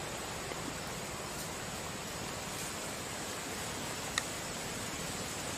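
Steady outdoor background hiss with a faint steady high-pitched tone, broken by a single short, sharp click about four seconds in.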